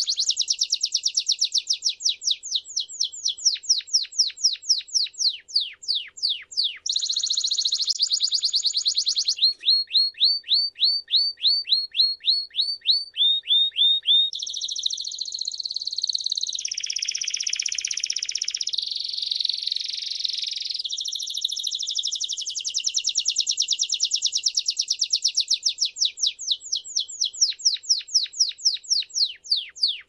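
Domestic canary singing a long, unbroken song. It alternates runs of fast repeated falling notes with dense rolling trills, and the phrase changes every few seconds.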